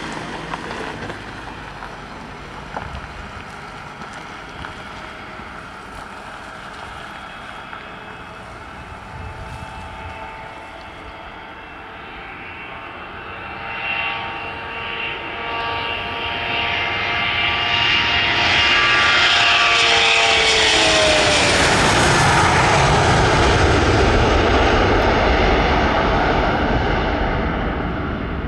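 A Boeing 717's twin rear-mounted Rolls-Royce BR715 turbofans at takeoff power: faint and distant at first, then swelling about halfway through into a loud roar as the jet accelerates past and lifts off. Its whining tones fall in pitch as it goes by, and the roar stays loud as it climbs away.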